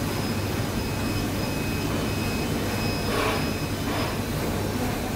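Hot air rework station's gun blowing steadily over a QFN chip to reflow the solder paste under it: a constant airy rush with a low hum and a faint high whine. A brief louder rush comes about three seconds in.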